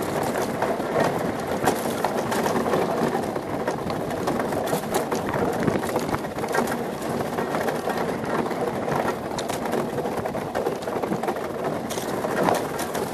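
Monotype XV ice yacht sailing at speed: a steady rushing, grinding noise of its runners on the ice and of the wind, with scattered clicks and knocks from the hull and rigging.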